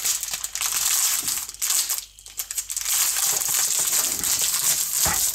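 Plastic bag crinkling and crackling as it is pressed and shifted on a cutting board, with a chef's knife slicing through the bag's end and the green-bean tips inside, and a low knock near the end.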